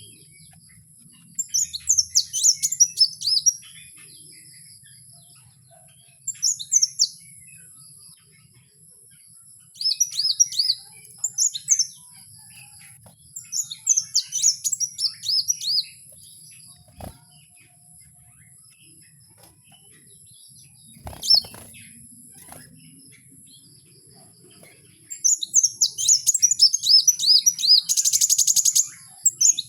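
Kowul bird singing in separate bursts of quick, high chirping notes, five or so phrases a few seconds apart, ending with a longer, faster run that turns into a buzzy trill near the end.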